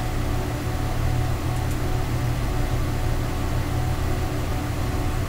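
A steady low hum with an even hiss underneath, with no distinct events.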